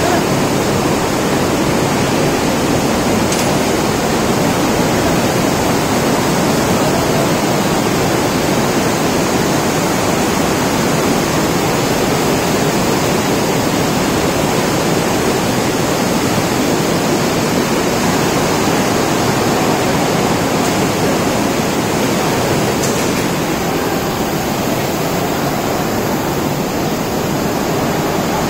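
Floodwater pouring and churning through a building: a steady, loud rush of water that eases slightly near the end.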